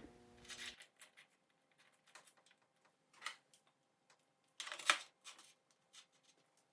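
Scattered light clicks and taps of hand tools and metal parts during bicycle fork and headset assembly, with one sharper click about five seconds in.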